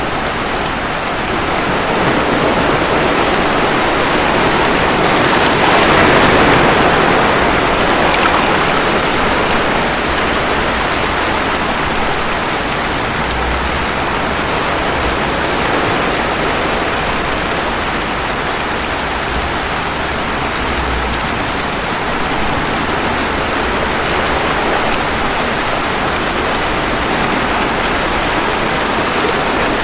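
Steady rain mixed with ocean waves, a continuous loud wash of water noise. A wave swells up and falls back about six seconds in, and a gentler one near the end.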